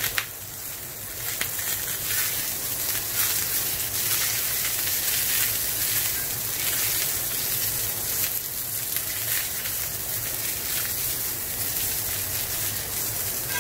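Zucchini slices searing in a very hot cast-iron skillet with olive oil: a steady sizzle with crackles and spatters.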